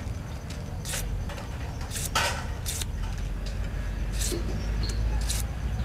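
Handheld vegetable peeler shaving ribbons off a cucumber: several short scraping strokes, about one a second, over a steady low background rumble.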